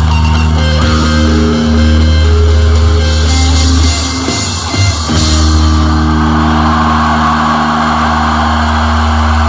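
Rock music with electric guitar and drum kit, playing steadily. A little after four seconds in, the sound briefly thins out and dips, then the full band comes back in.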